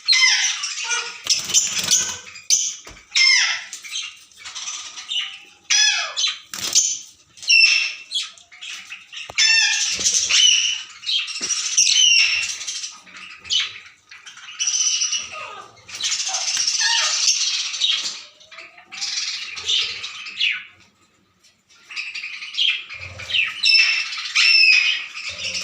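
A group of caged small parrots sold as love birds, chattering with rapid high chirps and shrill squawks almost without a break, going briefly quiet about 21 seconds in.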